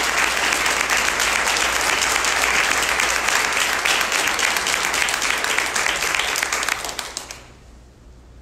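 Audience applause: many people clapping steadily, then dying away about seven seconds in.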